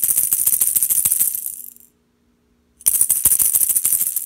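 A cat wand toy's clear plastic rattle ball shaken hard, its loose pieces rattling rapidly: one burst of nearly two seconds, a pause of about a second, then a second burst.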